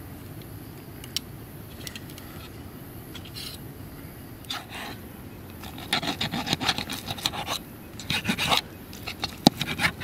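A multitool blade sawing through crisp, crunchy fried food: a rasping scrape in quick back-and-forth strokes, light and scattered at first and then dense for a couple of seconds past the middle, with a sharp click near the end.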